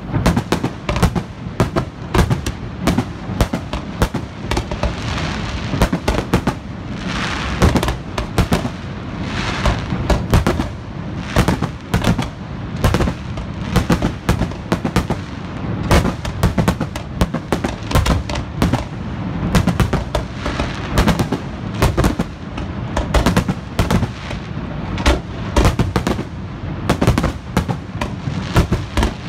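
Aerial fireworks shells bursting in a dense, continuous barrage of sharp bangs, several a second, thickening into a denser stretch about a third of the way in.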